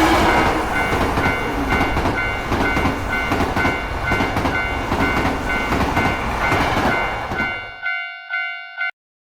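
Japanese railroad crossing warning bell dinging about three times a second while a train passes, its wheels clattering on the rails. The train noise fades out about 8 s in, the bell rings on alone for about a second, and then the sound stops abruptly.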